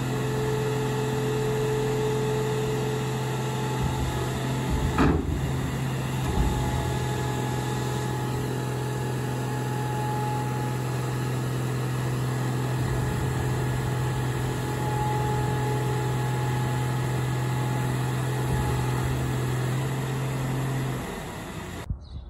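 1995 Mac car crusher's engine-driven hydraulic power unit running steadily under a no-load test of the crushing lid, a constant low drone with a faint pump whine above it. A brief clunk about five seconds in shifts the tone a little. The running sound cuts off abruptly near the end.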